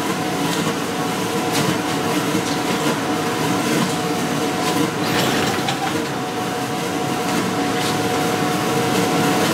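2004 Johnson 30 hp two-stroke outboard running steadily on a shop test stand.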